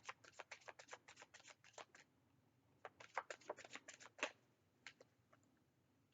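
Tarot cards being shuffled by hand, a rapid run of soft card clicks and flicks. It pauses for about a second, then comes in another run and thins out to a few scattered clicks near the end.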